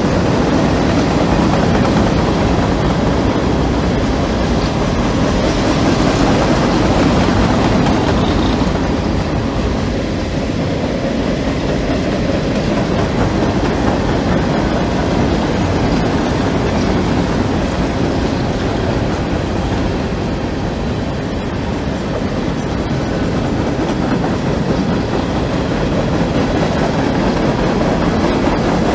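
A string of CSX coal hopper cars rolling past at track speed on welded rail: a continuous, loud rumble of steel wheels on rail and rattling car bodies, with no break.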